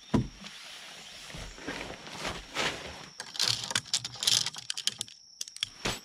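Nylon tent fabric rustling and swishing as it is folded, smoothed and rolled up tight by hand, with a thump just after the start and a burst of dense scratchy rustling a little past halfway.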